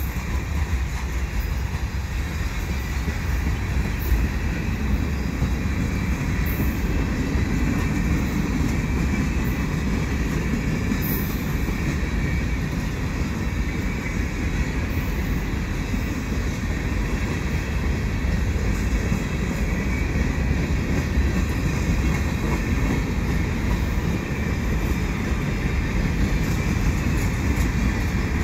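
Freight cars of a mixed freight train rolling past close by: a steady rumble and clatter of steel wheels on the rails.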